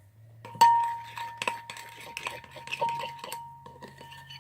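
A utensil clinking and knocking against a mixing bowl while slime ingredients are stirred: several irregular sharp knocks, each leaving a short ringing note, the loudest about half a second in.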